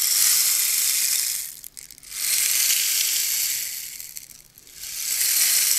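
Bamboo rainstick tipped over three times, each turn a pouring hiss that swells and fades as the beads inside run down the tube, a sound like rain.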